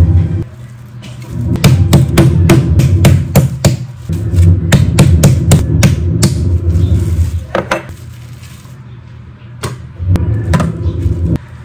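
Metal meat pounder beating chicken breast through plastic wrap on a wooden cutting board: a quick run of knocks, about four or five a second, for some five seconds, then a few single knocks near the end. A steady low hum runs underneath.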